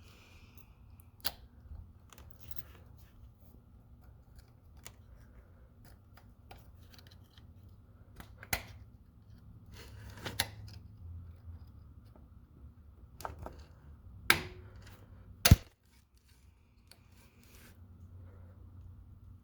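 Scattered clicks and small knocks as the accelerator cable is worked off the throttle body of a 1998 Audi A4 B5, with a sharp, loud snap about three-quarters of the way through.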